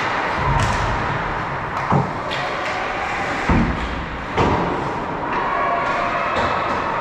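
Ice hockey play in an indoor rink: a steady din of skating, with sharp thumps and knocks of puck, sticks and players against the boards and ice, the loudest about two, three and a half and four and a half seconds in.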